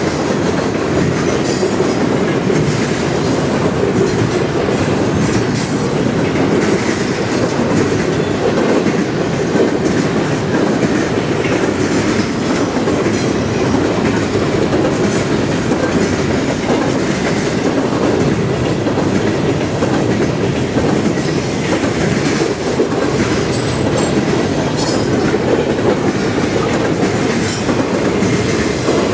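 Double-stack intermodal well cars rolling past: a steady loud rolling noise of steel wheels on rail, with faint brief high squeals now and then.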